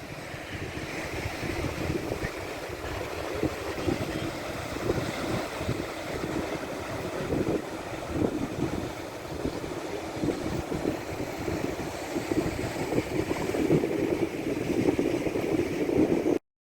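Wind buffeting the microphone over the wash of ocean surf, gusty and uneven throughout, cutting off suddenly near the end.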